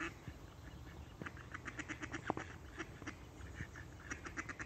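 Ducks quacking in quick runs of short calls, one run about a second in and a denser one near the end. A single sharp click a little after the middle.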